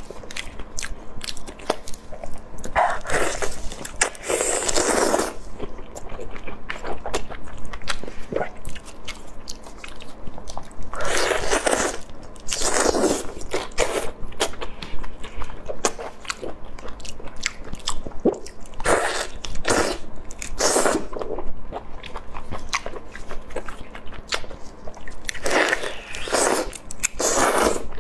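Close-miked eating of marinated shrimp: wet clicks, crunching and chewing as the shells are pulled apart and bitten. Louder wet stretches of a second or two come four times.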